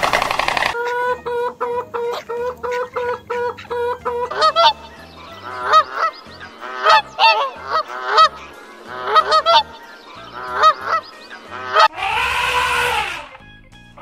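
Birds honking: first a quick run of evenly repeated calls, then bursts of rising-and-falling honks in small groups. Near the end comes a single louder, longer call.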